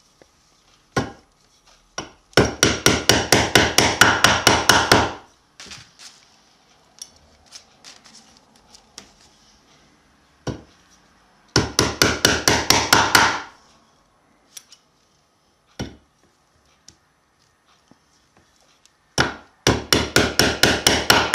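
Upholstery tacks being hammered through webbing into a wooden stool frame: three runs of quick taps, about five a second, several seconds apart, one run for each tack.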